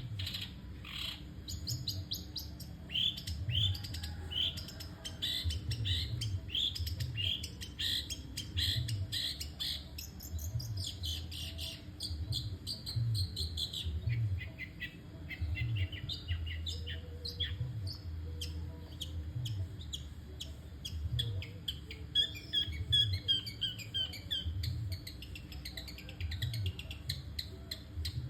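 Long-tailed shrike (cendet) singing without a pause: a long string of short, sharp chattering notes, at times in quick trills, with no gaps. A faint low thump repeats about once a second underneath.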